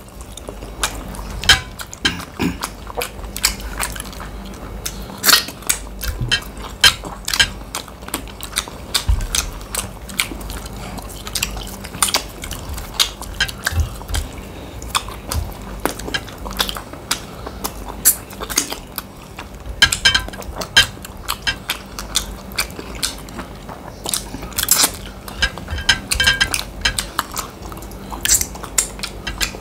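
People eating fast: frequent sharp clinks and scrapes of utensils against plates, with chewing in between.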